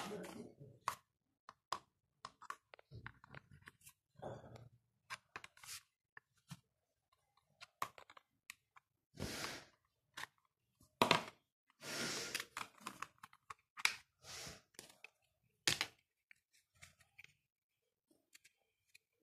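A plastic toy pressure water gun (pichkari) being taken apart with a small screwdriver: irregular clicks, taps and knocks of hard plastic, with a few longer scraping, rustling stretches about halfway through as the shell is worked open.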